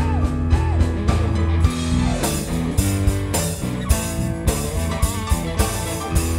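A live rock band playing an instrumental passage: electric guitars, bass and drum kit, with a lead line of bent notes near the start. About two seconds in, the cymbals come in harder on a steady beat.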